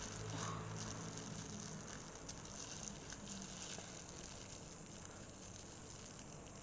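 Thin plastic pouch crinkling faintly with soft scattered clicks as sauce is squeezed out of it.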